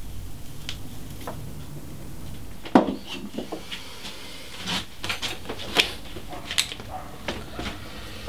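Irregular small knocks, taps and clicks of tools and carved wooden pieces being handled on a workbench, the sharpest knock about three seconds in.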